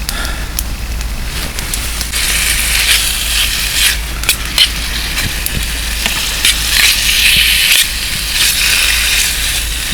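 Chicken breast pieces frying in oil in a pan over a small wood fire: a steady sizzle with sharp crackles, growing louder about two seconds in.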